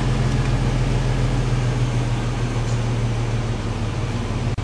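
1999 GMC Sierra's 4.3-litre Vortec V6 idling steadily through a Gibson 3-inch cat-back exhaust, heard from inside the cab as a low, even hum.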